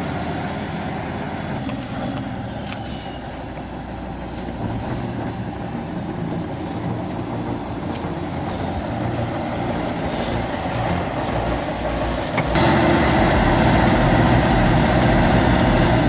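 A heavy vehicle's engine running under load, steady, with a sudden step up in loudness about three-quarters of the way through.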